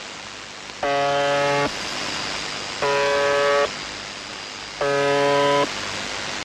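The UVB-76 'Buzzer' shortwave station on 4625 kHz, received on a shortwave radio in lower sideband: three short, flat buzzes about two seconds apart, over steady static hiss.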